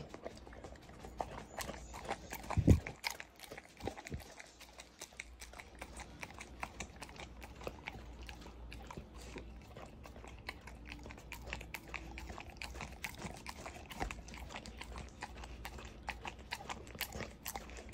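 A dog licking and smacking its mouth on sticky peanut butter: a rapid, irregular run of wet clicks and smacks from its tongue and lips. A louder low thump comes about two and a half seconds in.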